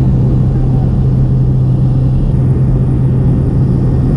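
Small high-wing jump plane's engine and propeller running steadily at climb power just after takeoff, heard from inside the cabin as a loud, even drone with one low steady hum.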